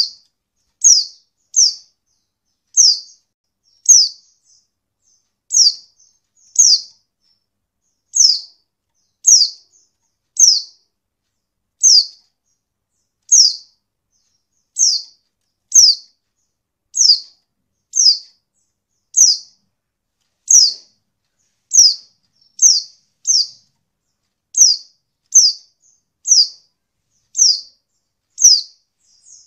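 Pleci (white-eye) calling: a short, high, falling call note repeated steadily about once a second. It is a female pleci's call, used to provoke male pleci into answering and singing.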